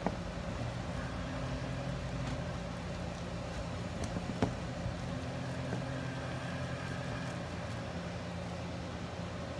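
Steady low hum, with a few faint taps of a metal whisk against a plastic jug about halfway through as it is worked through thick plaster texture paste.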